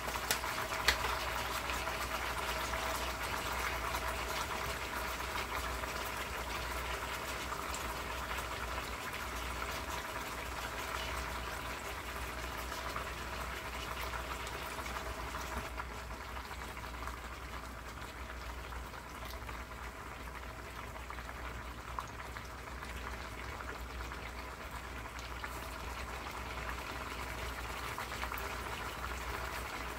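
Chicken pieces sizzling and bubbling in their own juices in a stainless steel pot on the stove: a steady, crackling hiss that eases a little about halfway through.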